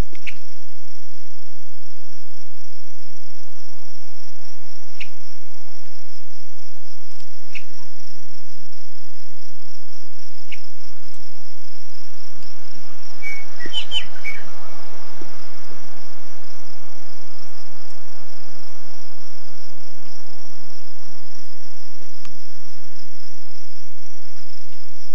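Steady high-pitched drone of insects, with a few short chirps a few seconds apart and a brief flurry of chirps and a thump about halfway through.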